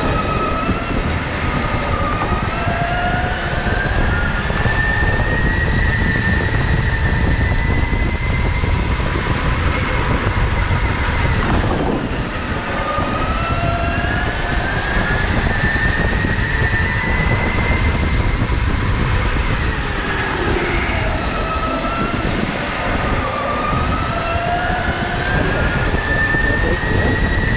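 Onboard sound of an electric go-kart at racing speed: the motor whine climbs in pitch as the kart speeds up on the straights and falls away when it slows for the corners, three times, over a steady rumble of tyres and chassis on the concrete track.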